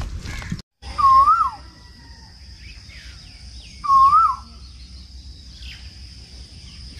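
Two loud whistled bird calls about three seconds apart. Each is a single clear wavering note that dips, rises and then falls away. Under them run a steady faint high-pitched whine and faint short chirps of other birds.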